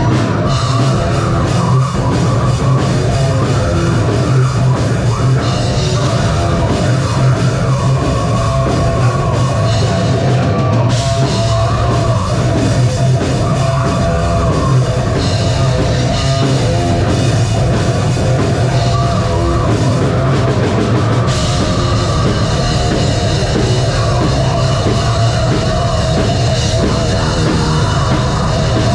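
Live metal band playing loudly and without a break: a full band with drum kit, in the metalcore/nu-metal style.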